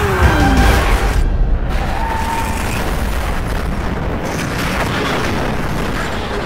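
Film sound effects of a motorcycle crash: a deep, continuous booming rumble with crashing noise, mixed with dramatic music.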